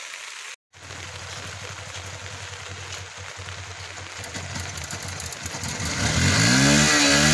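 Yamaha Fazer motorcycle's single-cylinder engine idling, then revved with the throttle from about six seconds in, its pitch rising and falling with each blip.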